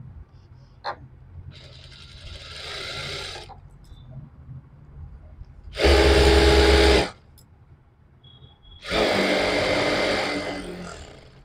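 Jack industrial lockstitch sewing machine stitching fabric in three short runs. The first run, about two seconds in, is quieter. The loudest lasts about a second, around six seconds in, and the last starts about nine seconds in and fades out.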